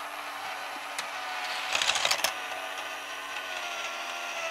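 Tomy Thomas' Race on the Rails battery-powered toy track set running: a small electric motor with a steady whine, with a quick run of plastic clicking and clattering about two seconds in.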